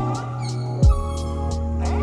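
Background music: held chords over a deep kick drum that lands a few times, with light high ticks like a hi-hat.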